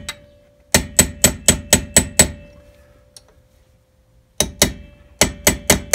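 Hammer tapping the metal grease cap onto a 1971 VW Beetle front wheel hub to seat it: a quick run of about eight taps, a pause of about two seconds, then more taps near the end. A faint steady ring hangs on during the pause.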